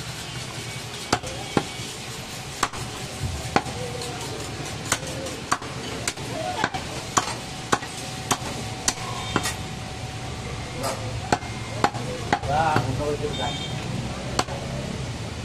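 Butcher's knife chopping goat meat on a wooden log chopping block: sharp chops at an uneven pace, roughly one or two a second, with short pauses between runs of cuts.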